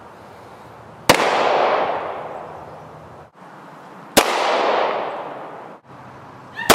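Three shots from a .40-caliber Taurus handgun, about three seconds apart. Each sharp crack is followed by a rolling echo that dies away over about two seconds.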